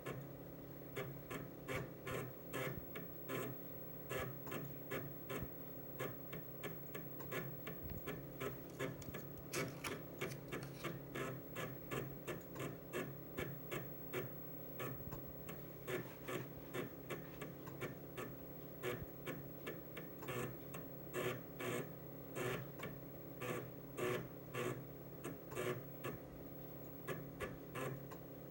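Amiga A1000 internal floppy drive loading a Workbench 1.3 disk: rapid, irregular head-stepping clicks in clusters, several a second, over the steady hum of the drive motor and the computer.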